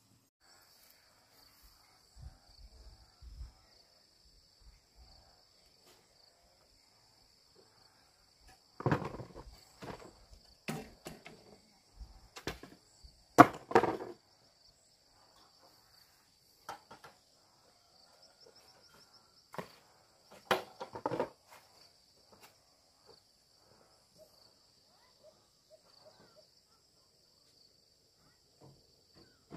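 Steady high-pitched insect chorus, with scattered sharp knocks and scrapes of work, loudest in a cluster about a third of the way in and again about two-thirds in.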